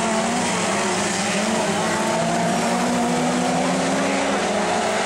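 Several winged mini sprint cars racing on a dirt oval, their engines blending into a steady drone with several pitches wavering as the cars lap.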